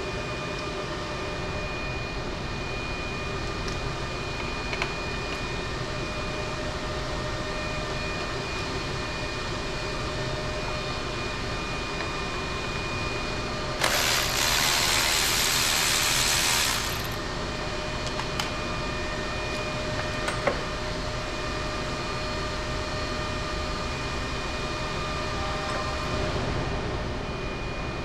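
Steady hum of workshop ventilation machinery with several fixed pitches, a few faint clicks, and a loud rushing hiss for about three seconds roughly halfway through.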